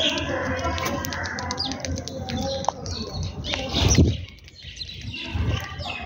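House sparrows chirping around the grain, short high chirps scattered throughout. A brief low flutter of wings comes about four seconds in, and a smaller one near the end.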